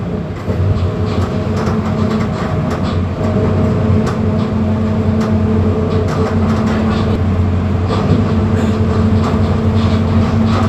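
Mercedes-Benz OF-1721 BlueTec 5 bus diesel engine running under way, a steady drone that dips briefly at the start and then holds, with frequent rattles and knocks from the bus body.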